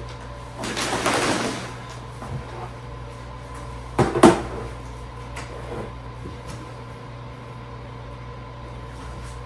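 Handling noise as a sofa cushion is fitted onto the sectional frame: a rustle about a second in, then two quick knocks close together about four seconds in.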